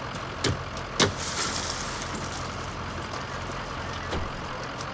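Steady low rumble of an idling heavy vehicle engine. It is broken by two sharp knocks about half a second apart near the start, the second the loudest and followed by a brief hiss, and by a fainter knock near the end.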